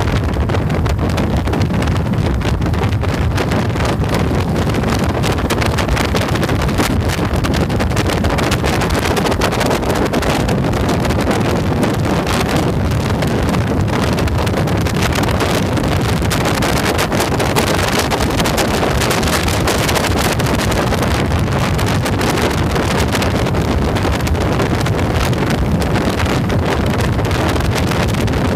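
Steady wind rushing over the microphone of a motorcycle riding at road speed, with the low drone of the motorcycle's engine and tyres underneath.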